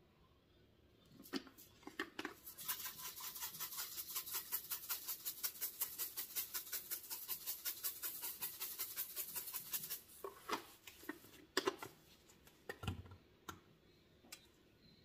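A seasoning shaker shaken rapidly over raw chicken thighs, the dry seasoning rattling in a quick, even rhythm for several seconds. Then a few separate clicks and knocks as the shakers are handled.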